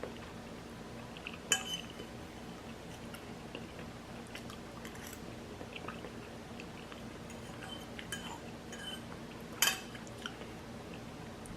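An eating utensil clinking against a bowl of noodles, with two sharper clinks about a second and a half in and near the end, and small wet eating sounds in between.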